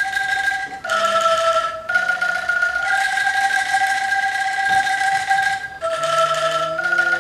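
Angklung ensemble playing a slow melody: each shaken bamboo note rattles out as a held tone for about a second before the next pitch takes over.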